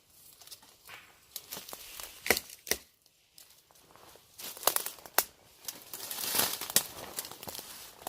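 Dry leaves and brush rustling, with irregular sharp snaps of twigs, as someone pushes through forest undergrowth.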